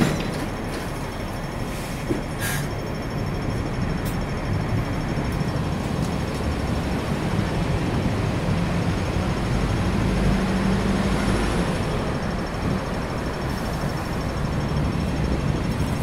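Hong Kong double-decker tram standing still, heard from its upper deck: a steady low rumble and hum of the tram and the street around it. A couple of short clicks come in the first few seconds, and a low hum swells briefly about two-thirds of the way through.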